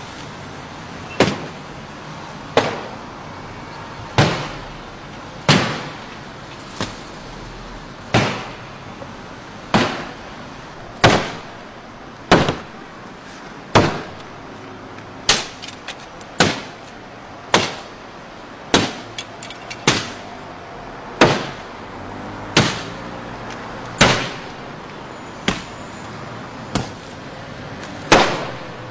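A man is striking a Mercedes-Benz S63's body panels and glass over and over with a heavy long-handled tool. There are about twenty hard, sharp blows, roughly one every second and a half, each ringing out briefly. Steady street traffic runs underneath.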